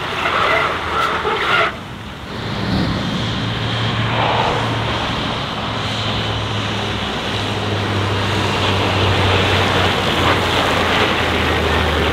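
Heavy truck's diesel engine running, its low drone stepping down in pitch twice. Before that, a steady higher tone over the engine noise cuts off abruptly about two seconds in.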